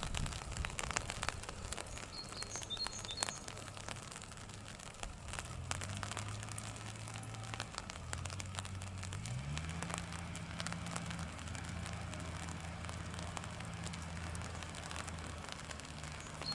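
Raindrops tapping irregularly on an umbrella. From about five seconds in, a low droning sound holds steady pitches, changes pitch in steps and slides upward once. A few short high chirps come a couple of seconds in.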